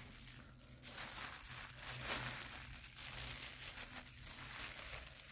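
A hand rummaging through damp, crumbly vermicompost bedding: irregular soft rustling and crackling of the compost being turned over, over a faint steady low hum.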